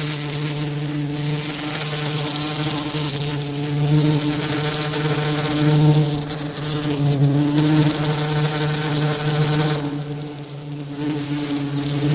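A flying insect buzzing: a loud, steady, low-pitched wing drone that wavers slightly in pitch and strength.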